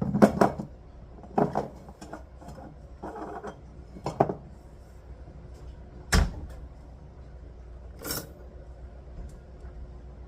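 Scattered household knocks and clunks, about six of them, of things being handled and shut; the sharpest comes about six seconds in.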